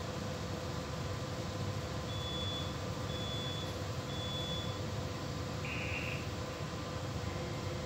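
Steady low machinery hum with a faint constant tone, and three short high-pitched electronic beeps about a second apart, followed by a brief higher chirp about six seconds in.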